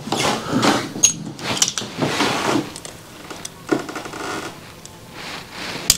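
Small metal parts being handled on a workbench: irregular clicks, taps and short scrapes, with a sharp click near the end.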